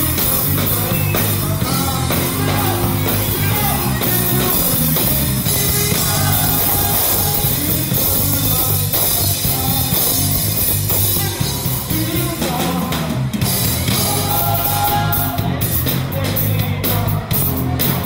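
Live band playing a 90s R&B medley: electric guitars and electric bass through small combo amps, with a steady repeating bass line and singing over it.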